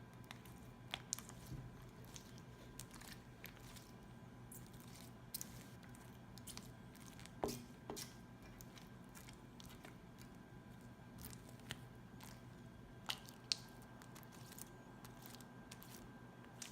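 Sticky homemade glue-and-borax slime being squished and worked by hand, with faint, irregular wet clicks and pops; two louder pops come about halfway through and near the end.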